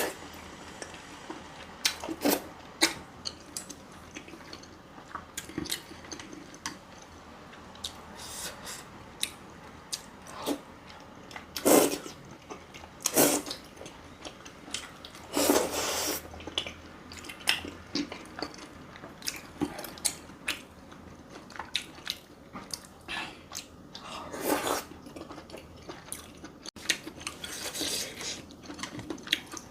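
Close-miked eating: a person chewing and biting food, with irregular wet clicks and smacks and a few louder bursts now and then.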